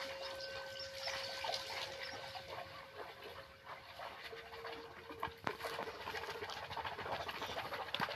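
Hand-held metal singing bowl ringing with one steady pure tone that fades about four seconds in, as a second, slightly lower-pitched bowl sounds. Underneath is a busy background of many small clicks.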